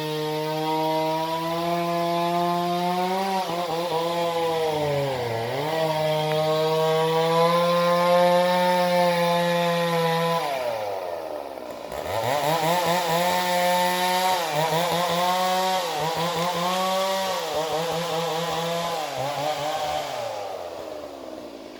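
Two-stroke chainsaw running at high revs while cutting through timber. Its note dips sharply under load about five seconds in, drops away around ten seconds, then revs up again and wavers with repeated dips before falling off near the end.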